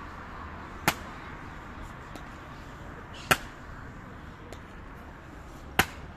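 Hobnailed tsarouchia shoes of an Evzone guard striking the stone pavement in the slow ceremonial march: three sharp, loud stamps about two and a half seconds apart.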